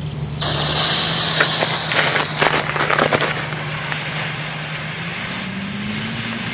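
Blue colored-smoke firework catching about half a second in and hissing steadily as it burns, with a few sharp crackles in the first few seconds.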